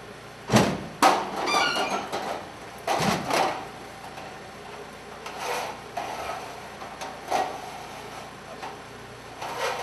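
Metal ladder clanking and rattling as it is stood up against a wall and raised: two sharp knocks near the start with a brief metallic ring, another cluster of knocks about three seconds in, then lighter rattles.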